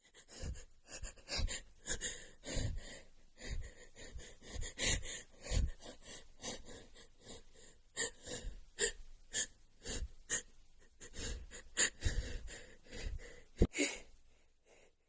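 A woman's quick, irregular gasps and sniffs, a long run of short breaths as an itchy sneeze builds.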